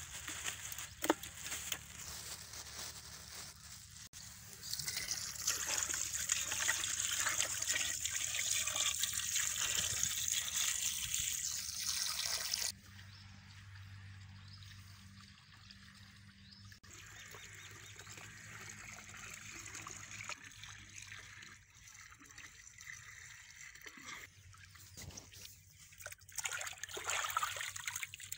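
Water pouring into a steel pot of raw chicken pieces, starting about five seconds in and cutting off suddenly about thirteen seconds in. Then comes quieter splashing and sloshing as the chicken pieces are washed by hand in the water.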